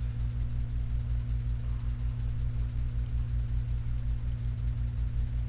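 Steady low machine hum with a fast, even throb underneath.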